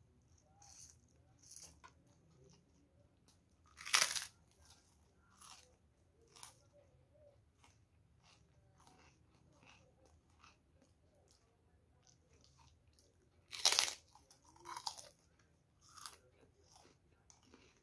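Someone biting into and chewing krupuk, the large puffed Indonesian crackers: two loud crisp crunches, about four seconds in and again near fourteen seconds, each followed by a string of quieter chewing crunches.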